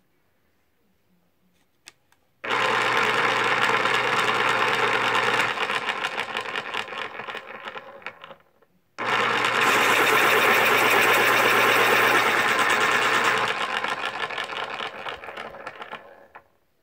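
X-Acto Power3 1700 electric pencil sharpener running as a pencil is pushed in, twice: each run starts suddenly with a motor hum and the blade grinding the wood, lasts about six to seven seconds, and fades out over its last couple of seconds.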